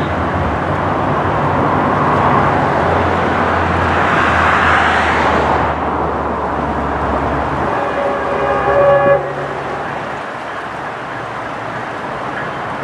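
Steady road traffic noise, with one vehicle swelling and passing about four to six seconds in. About eight seconds in a horn sounds a held chord for about a second, the loudest moment, then cuts off.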